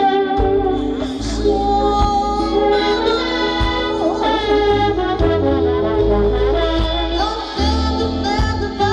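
Live soul band playing: a trombone playing held and sliding notes over electric bass, drums and keyboards, with a woman singing.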